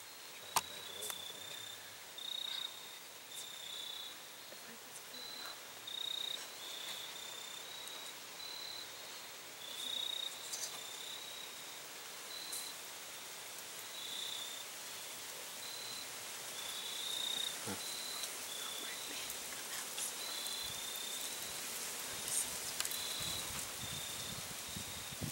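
Crickets chirping: short chirps at a high, steady pitch, repeated irregularly over a steady outdoor hiss, with a few faint clicks.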